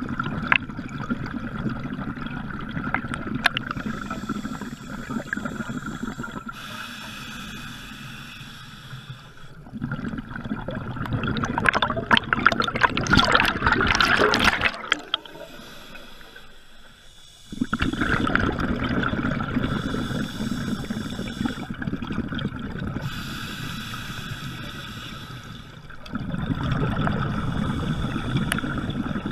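Scuba diver breathing through an open-circuit regulator, heard up close on the diver's camera: hissing breaths alternating with the bubbling rush of exhaled air. The loudest and longest bubble burst comes about halfway through, followed by a short lull.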